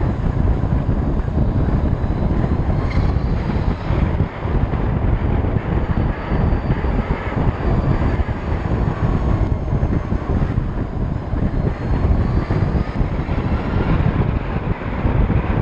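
Heavy wind buffeting on the microphone of a Harley-Davidson LiveWire electric motorcycle at road speed. Under the wind there is a faint whine from the electric drivetrain that rises in pitch as the bike speeds up.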